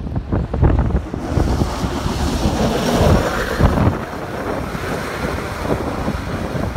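A plow truck passing on a slushy road: a rushing hiss of tyres through slush that builds to a peak about three seconds in as it goes by, then fades to a steadier rush as it pulls away. Wind buffets the microphone at the start.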